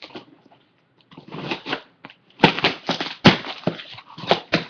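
A mail package being opened by hand: rustling and tearing of the packaging, with several sharp crackles and snaps in the second half.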